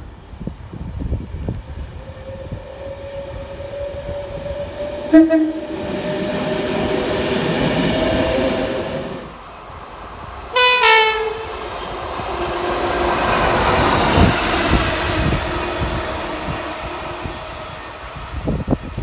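Train horn sounded in two short blasts about five seconds apart, the second higher in pitch, as a train runs past. The rumble of the train swells and fades between and after the blasts.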